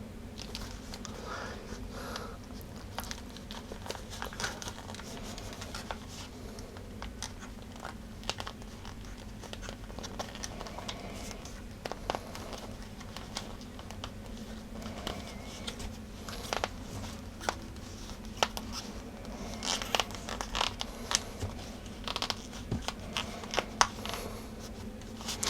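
Handling noises of a replacement ear pad being pressed onto a Denon AH-D7100 headphone earcup, its edges pushed into the cup's gaps: faint rustling, scratching and small clicks, getting busier over the last ten seconds or so.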